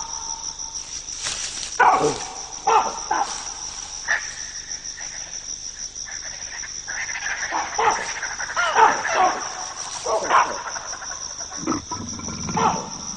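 Baboons screaming and barking at an attacking leopard, short harsh calls in scattered bouts, busiest a little past the middle, over a steady high trill of crickets. A lower, rougher sound comes in near the end.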